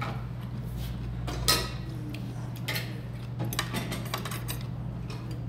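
Metal spoon and chopsticks clinking against bowls while eating: a handful of sharp clinks, the loudest about one and a half seconds in and a quick cluster near the end, over a steady low hum.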